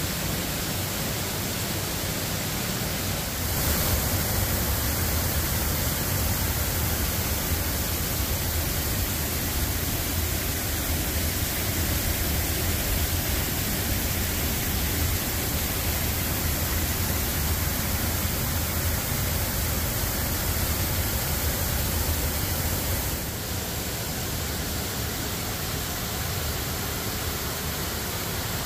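Steady rush of water pouring over a creek waterfall, with a deep low rumble under the hiss. The level steps up suddenly a few seconds in and drops back about five seconds before the end.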